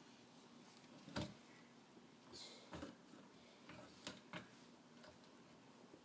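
A few faint clicks and taps of a flat wooden stick poked into the lock of an old wooden trunk, the sharpest about a second in and two more in quick succession a little after four seconds.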